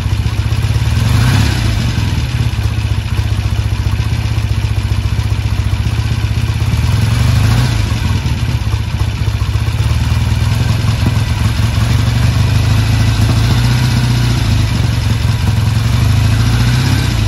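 1974 Norton Commando 850's 828 cc parallel-twin engine running, with the throttle blipped briefly about a second and a half in and again near eight seconds. It is running on its newly fitted Tri-Spark electronic ignition, which replaced the points.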